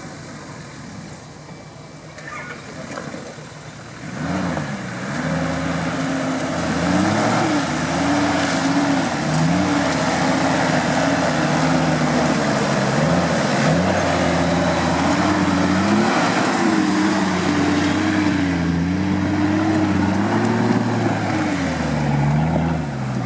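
Off-road vehicle's engine revving up and down over and over as the throttle is worked, getting much louder about four seconds in.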